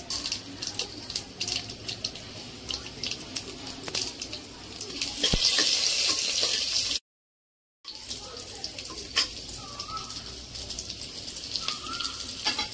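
Whole spices and a bay leaf sizzling in hot oil in a pressure cooker, with seeds crackling and popping and a steel spoon stirring. The sizzle swells louder about five seconds in, then cuts out completely for about a second before carrying on.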